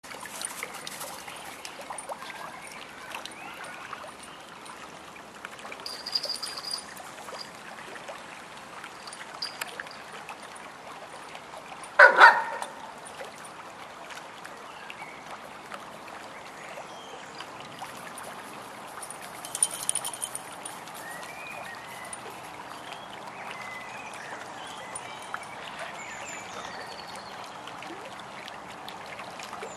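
Steady trickle of running water, with a dog's short double bark about twelve seconds in.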